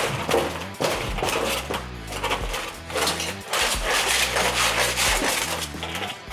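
Repeated scraping and knocking of tools working on scrap metal.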